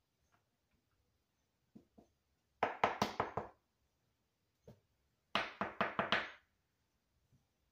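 Plastic cookie cutter knocking on a countertop in two quick runs of about six sharp knocks each, a couple of seconds apart, with a few faint taps between.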